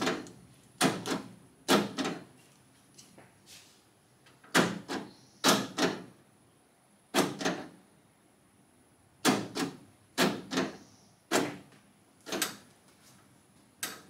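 A newly installed power door lock actuator in a car door clunking as it is fed battery power for a test: about ten sharp clunks at uneven spacing, most with a quick second knock just after as the lock linkage snaps over.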